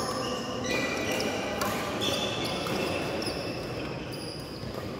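Badminton rally: rackets strike the shuttlecock a few times, sharp clicks, among many short high squeaks of shoes on the court floor.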